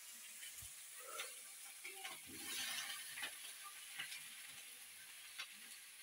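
Quiet handling of fresh wild mushrooms being picked up and moved to a basin of water: scattered small clicks and taps, with a brief rustling or splashing burst about two and a half seconds in, over a steady faint high hiss.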